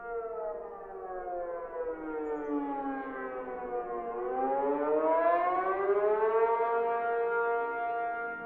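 Tornado warning siren wailing. Its pitch falls for about four seconds, rises back over the next two and a half, and then holds steady.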